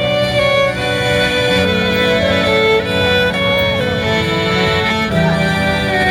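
A violin playing a melody with held, wavering notes over a lower accompaniment.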